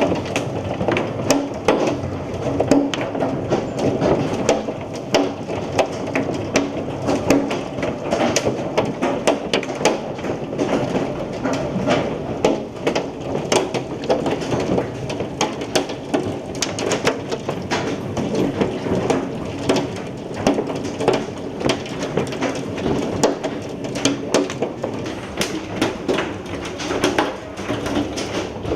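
Hailstones pelting down, a dense continuous rattle of many sharp, irregular impacts.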